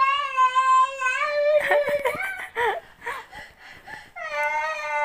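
A young child crying: a long, high-pitched, drawn-out wail, then broken sobs about two seconds in, then another long wail starting near the end.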